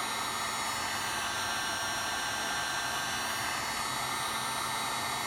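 Heat gun blowing steadily, a constant even rush of air with a faint motor whine, shrinking heat-shrink tubing onto a car's control cable.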